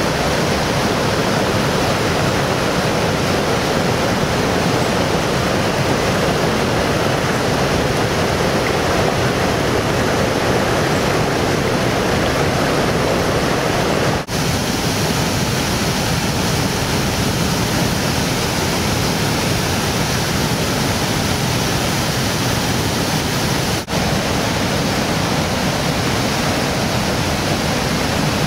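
River rapids and a weir waterfall rushing, a steady loud roar of water. The rush drops out for an instant about halfway through and again some ten seconds later.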